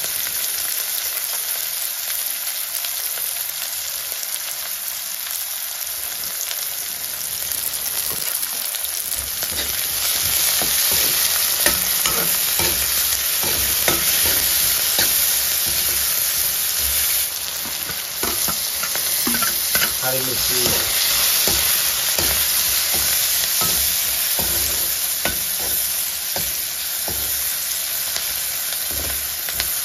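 Food sizzling steadily in a hot cooking pan. From about a third of the way in, a utensil stirring it adds frequent irregular knocks and scrapes against the pan.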